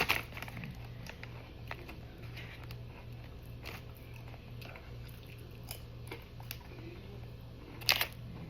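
Faint scattered clicks and crinkles from a bag of chips being handled, with one louder crackle near the end, over a low steady hum.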